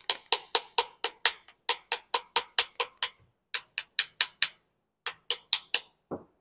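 Plastic handle of a screwdriver rapping a Walbro carburetor's float bowl, about five sharp knocks a second in three bursts, with a duller thump near the end. The rapping is to jar loose a float bowl that is stuck on after its screws are out.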